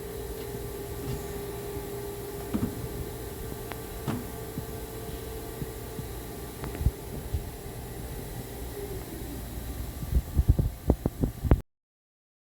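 Rush FC 500D tool grinder running with a steady hum that fades out past halfway. A few single clicks, then a quick run of mechanical knocks and clunks near the end, and the sound cuts off abruptly.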